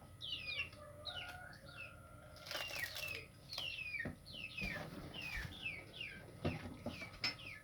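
Small birds chirping over and over, each chirp short and falling in pitch, with a brief rustle about two and a half seconds in.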